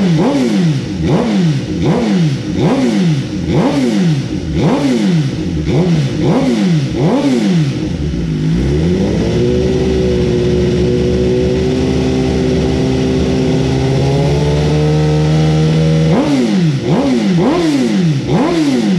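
2023 Suzuki GSX-R1000R's inline-four engine, with a full M4 Street Slayer titanium exhaust, revved on a stand for a sound check. It opens with a quick run of throttle blips, a little more than one a second. Then it holds a rev that climbs slowly for several seconds, and it ends with four more blips.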